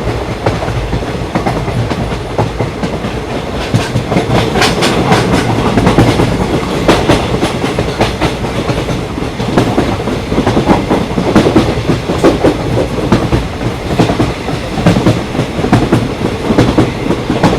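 Train crossing a bridge, its wheels clattering steadily over the rail joints with a continuous rumble.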